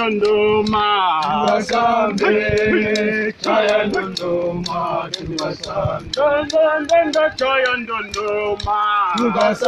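A group of men singing a chant together, the voices wavering and overlapping, with sharp clicks keeping a steady beat about three times a second.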